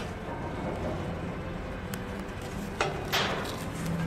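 Steady low background hum, with a sharp click and a brief scrape about three seconds in as a tapered steel bar is brought against the steel beam.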